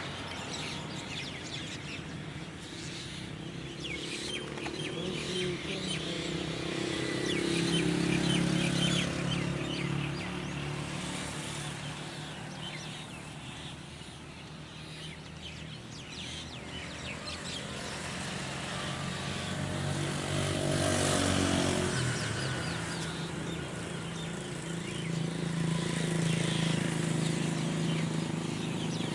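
Engines of passing road vehicles swelling and fading several times, loudest as one passes close about two-thirds of the way through, with small birds chirping over the traffic.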